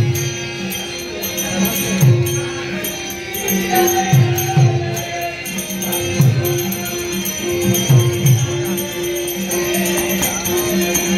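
Live Dashavatar folk accompaniment: a harmonium holding one steady note, a pakhawaj barrel drum beating low strokes, and small hand cymbals jingling in time.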